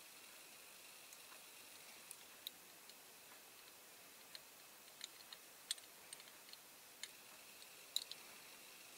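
Faint, irregular small clicks and taps of diecast and plastic model-tractor parts knocking together as they are fitted by hand, a dozen or so, busiest in the second half.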